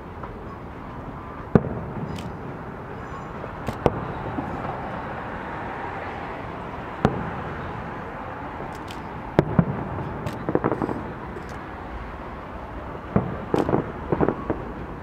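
Aerial firework shells bursting: single sharp bangs every few seconds, then quick runs of crackling reports about ten seconds in and again near the end, over steady background noise.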